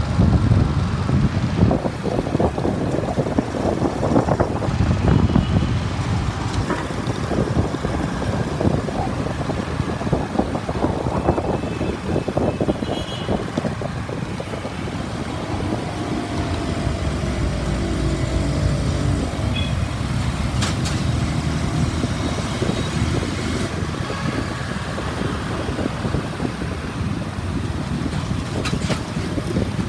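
Motorbike riding through city traffic: wind buffets the microphone over the steady hum of engines and road noise.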